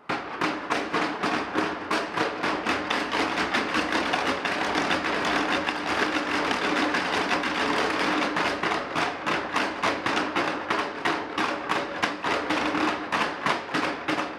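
Rapid, continuous percussive clatter: a regular train of knocks, about four or five a second, over a steady low drone. It starts suddenly.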